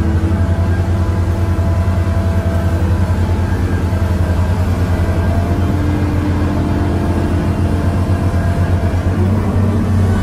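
Diesel engine of a 125-ton hydraulic excavator working under load as it digs and loads a truck: a steady low drone with a fast, even throb.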